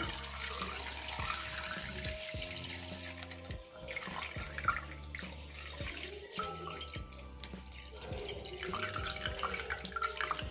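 Milk pouring in a stream from a squeezed plastic milk pouch into a stainless steel pot, liquid splashing into liquid.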